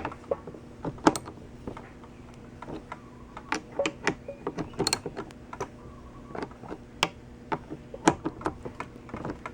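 Scattered, irregular clicks and light metallic taps from a socket ratchet and hand tools working the petcock mounting bolts on a steel motorcycle gas tank.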